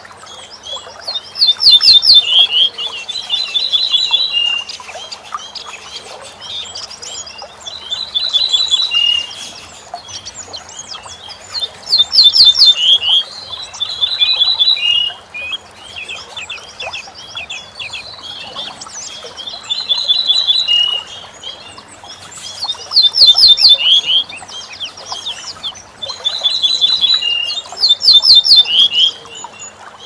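A bunting singing its song over and over: phrases a second or two long, made of runs of short repeated high notes, quick jangling trills and a lower closing note, come every few seconds. A faint steady low hum lies beneath.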